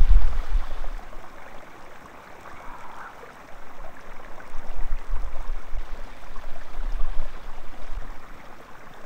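Water of a small mountain spring trickling and splashing as a man rinses himself off in it, with gusts of wind rumbling on the microphone at the start and again in the second half.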